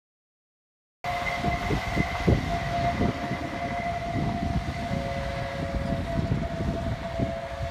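A steady high-pitched railway warning tone starts suddenly about a second in, with a slightly lower second note that cuts in and out. Gusts of wind rumble on the microphone throughout.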